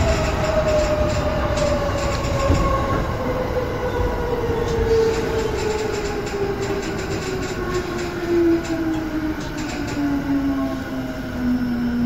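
Electric commuter train heard from the cab: the traction motors' whine falls slowly and steadily in pitch as the train slows. Under it run the rumble of the wheels and scattered rail-joint clicks.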